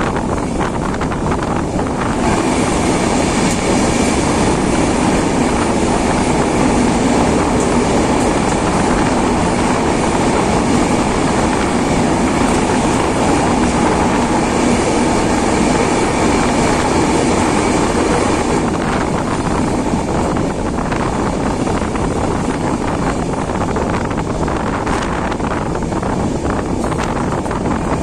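Passenger train running on the rails, heard from an open coach door: a steady rumble of wheels and rushing air. It grows louder and fuller about two seconds in as the train enters a tunnel, and eases a little after about eighteen seconds when it comes out.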